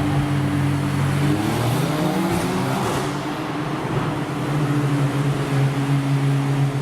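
Volkswagen Golf R's turbocharged four-cylinder engine heard from inside the car, running at a steady pitch, then rising in pitch about a second and a half in as it accelerates, before settling back to a steady drone.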